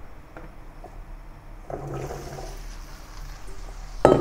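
Raw potato chunks tipped from a metal bowl into hot deep-frying oil in a wok: the oil starts sizzling about two seconds in and keeps up a steady hiss, with a sharp knock near the end.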